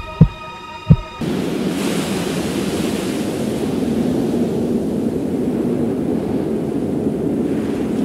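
Two low heartbeat thumps over a held droning tone. The drone cuts off abruptly about a second in and gives way to a steady rushing noise.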